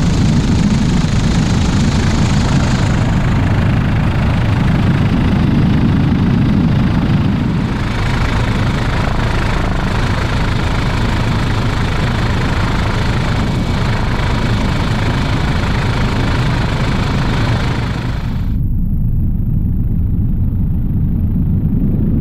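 Helicopter in flight heard from inside the cabin: a loud, steady rotor and engine rumble. Near the end the higher sounds drop away suddenly, leaving a muffled low rumble.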